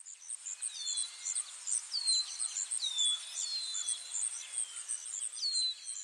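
Birds and insects calling: a fast, even train of high-pitched chirps, with a bird's downward-sliding whistle about five times, over a soft hiss.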